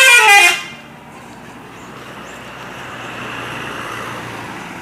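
A bus's telolet musical horn ends its short melody, several tones stepping up and down together, and cuts off about half a second in. A rushing vehicle noise follows, swelling and easing.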